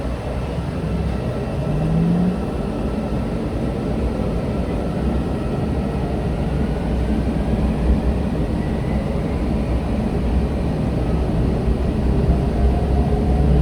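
Hyundai Rotem MRT train running over a steady low rumble, its traction motors whining in several tones that climb in pitch as it gathers speed.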